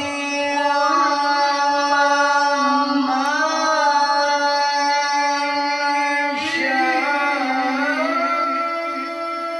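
A qori's high, strong male voice holding long Arabic melismatic notes, with ornamental turns in pitch about a second in, around three seconds and again around six and a half to eight seconds.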